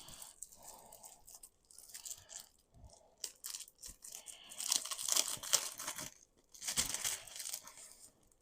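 Packaging being handled: rustling and crinkling in a string of short bursts, with the longest and loudest stretches about halfway through and again near the end.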